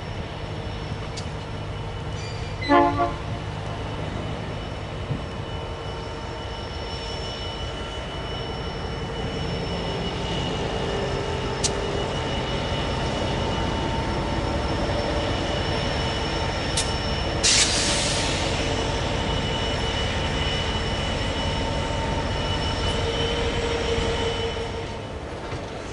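Freight train passing slowly: the diesel engine of an Aurizon S-class locomotive running as it goes by, then lime tank wagons rolling past with a steady ringing squeal from the wheels. A short sharp sound about three seconds in and a brief hiss a little after halfway.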